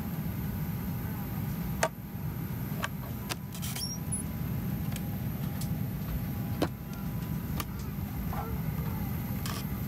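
Steady low rumble of a Boeing 737-800 cabin, with a few sharp plastic clicks from a seat-back tray table and its latch being handled. The loudest clicks come about two seconds in and again near seven seconds in.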